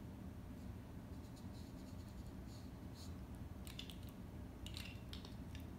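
Faint scratching and small clicks of a primer pen's tip rubbed and dabbed on the fletching of an arrow, with a few clicks bunched about two-thirds of the way in.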